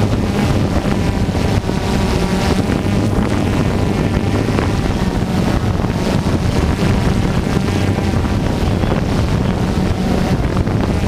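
Radio-controlled off-road cars running on a dirt track, their motors buzzing steadily, with wind blowing on the microphone.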